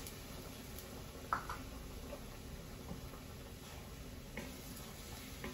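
A few light clicks and knocks of a ladle and kitchen containers being handled at a stovetop pot, the sharpest a little over a second in, over a low steady hum.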